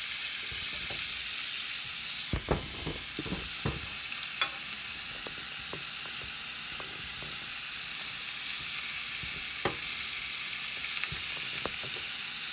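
Beef frying in hot olive oil, sizzling steadily. A few sharp knocks and clinks of a stainless steel frying pan being handled come a couple of seconds in and again near the end.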